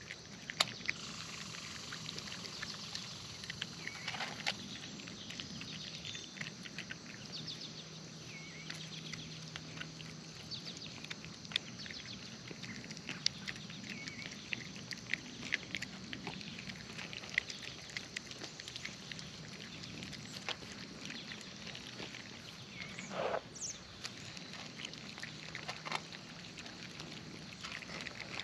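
Cats eating wet food: an irregular run of small chewing clicks over a low background hum, with one short louder sound late on.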